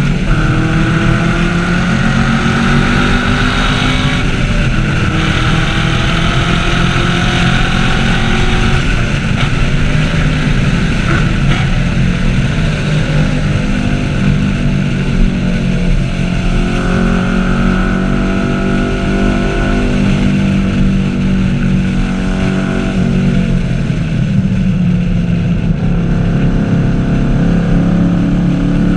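Chevrolet Camaro 1LE's V8 engine running hard on a race track, its revs climbing and dropping repeatedly as it is driven through gears.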